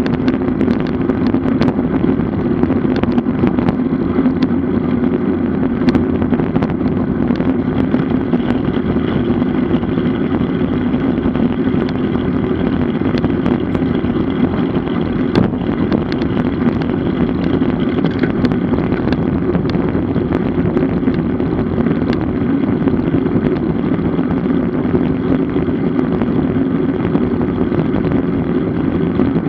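Steady rushing wind and road noise on the microphone of a camera riding with a road bicycle at speed, with scattered small ticks.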